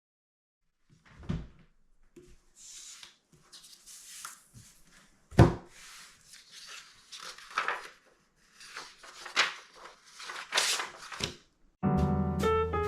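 Paper being handled and folded: irregular rustling and crinkling, with two thumps, the louder about five seconds in. Jazz music with piano starts near the end.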